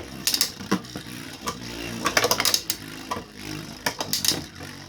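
3D-printed Beyblade spinning tops battling in a plastic stadium: several clusters of sharp clicking hits as they collide, over a faint steady whir of the spinning tops.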